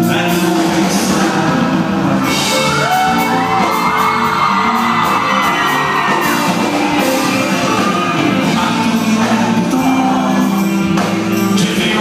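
A live band playing loudly, with a voice singing over the music.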